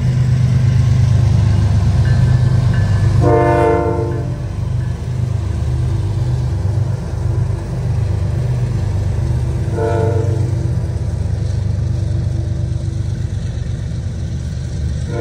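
CN diesel freight train running past with a steady low engine rumble, its air horn sounding a chord: a blast of about a second roughly three seconds in, a short one about ten seconds in, and another starting at the very end.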